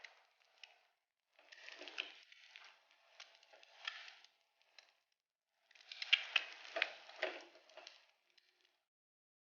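Utensil scraping and clicking against a plate in two bursts of a few seconds each, as fried rice is scooped and arranged for serving.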